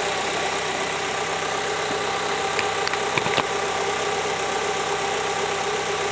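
Rover 45's 16-valve K-series four-cylinder petrol engine idling steadily after a head gasket replacement, with a few light clicks about halfway through.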